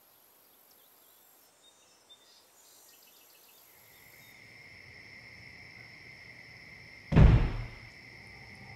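Faint evening outdoor ambience with insect chirps, then a steady high synth drone swells in. About seven seconds in, a sudden loud low boom hits, a horror-score impact, leaving a low ominous rumble.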